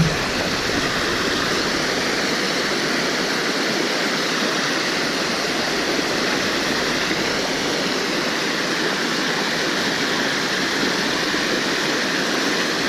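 Water of Mae Sa Waterfall rushing and cascading over rocks, a steady, unbroken noise.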